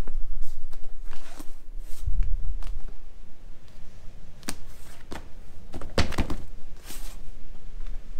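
Scattered knocks and thunks from handling a vintage swivel chair and its loose padded part, with a dull low thump about two seconds in and a few sharper knocks later on.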